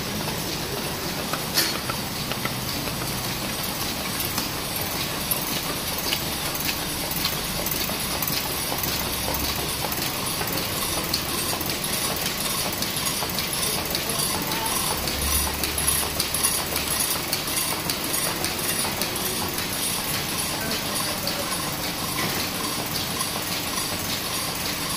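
Box folding machine running: a steady mechanical clatter with fast, even ticking, and one sharp click about a second and a half in.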